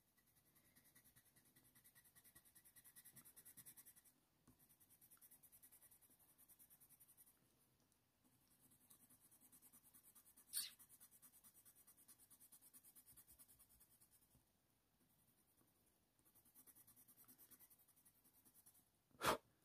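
Very faint strokes of a Faber-Castell Polychromos colour pencil on hot-press watercolour paper, laying a light base layer, barely above room tone. A sharp click about halfway through and another near the end.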